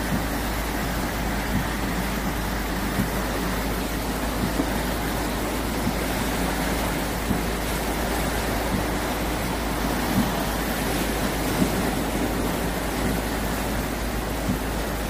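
Steady rush of a flooding, rain-swollen stream mixed with heavy rain, heard from a car window, with faint scattered taps every second or so.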